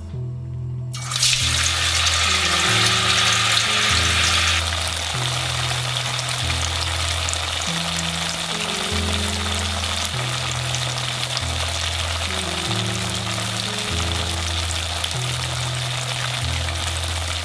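Tofu slices frying in hot oil in a pan: a loud sizzle starts suddenly about a second in as the tofu goes into the oil, eases after a few seconds, and then carries on steadily. Background music with low repeating notes plays under it.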